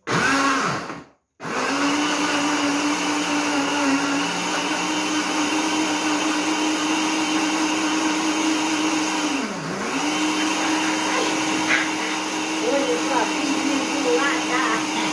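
Countertop blender motor blending pineapple and apple pieces with water into juice: it runs for about a second, stops briefly, then starts again and runs steadily. Once, near the middle, its pitch dips sharply and recovers.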